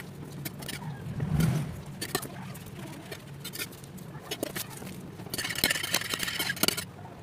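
Metal offset spatula spreading and scraping frosting on a cake, with scattered light clicks and a longer, denser scrape about five and a half seconds in, over a steady low hum.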